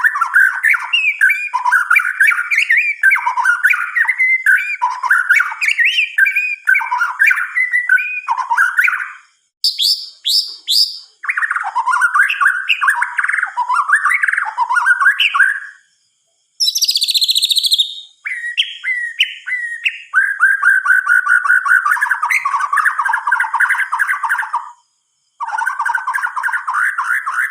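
White-rumped shama (murai batu) singing: long, varied phrases of fast whistled and rattling notes, broken by short pauses. It adds a few higher, quicker notes about ten seconds in and a brief high burst just past the middle.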